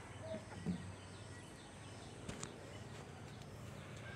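Faint outdoor ambience with small birds chirping repeatedly in short, high, falling notes. A short low thump comes about two-thirds of a second in, and a sharp click a little after two seconds.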